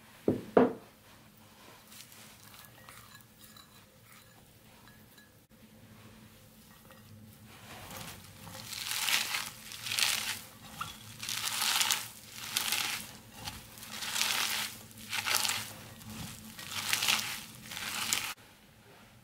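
Hands squeezing and kneading shredded raw cabbage and grated carrot in a ceramic bowl: a crisp, crunchy rustle about once a second, starting partway through and stopping suddenly near the end. Just after the start, two sharp knocks.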